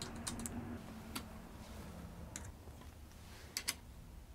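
Faint, scattered clicks and ticks of a hand screwdriver turning screws into a light wooden shelf frame, a few at a time with gaps between.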